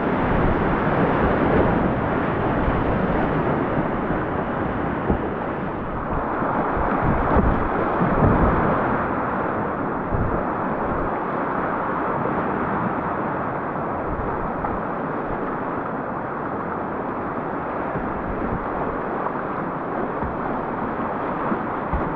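Whitewater river rapids rushing steadily, with scattered low thumps.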